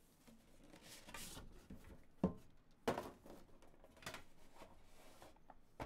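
Cardboard trading-card box being opened by hand: the lid lifted and the inner cardboard tray slid out, with faint scraping and rustling and a couple of light knocks about two and three seconds in.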